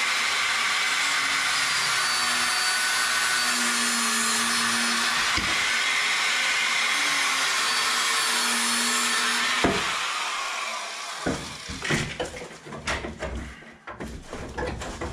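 A small corded power tool running steadily for about ten seconds as it cuts through plastic water pipes at the wall, with a constant whine over its noise. It stops with a knock, followed by clicks and knocks as the pipes are handled.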